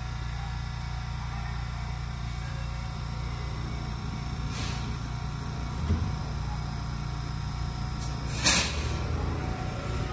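Shin-Keisei 8800-series electric train standing at a platform with a steady low hum from its equipment. Its doors slide shut with a thump about six seconds in, and a short, sharp burst of air hiss comes a couple of seconds later as the train gets ready to pull away.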